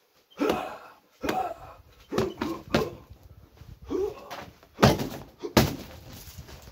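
Blows landing on a heavy hanging punching bag: about seven heavy thuds at irregular intervals, half a second to a second apart.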